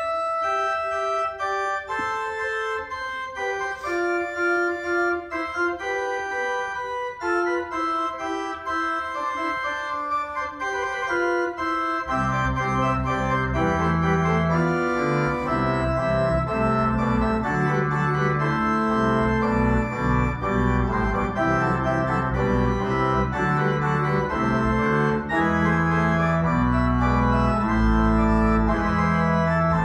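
Church organ playing held chords; about twelve seconds in, deep bass notes join and the sound grows fuller and louder.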